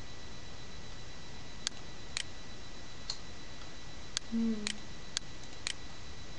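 About seven sharp, separate clicks from a computer mouse and keyboard, roughly half a second apart, over a steady faint high-pitched whine. A brief low hum falls between the clicks a little past the middle.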